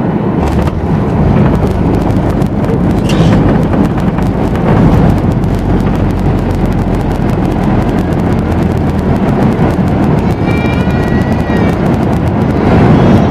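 Cabin noise of a Boeing 737 MAX 8 on landing rollout: a loud, steady rumble of its CFM LEAP-1B engines and rushing air, with the wing's ground spoilers raised. A short knock about half a second in, after which the noise grows louder, and a brief high whine about ten seconds in.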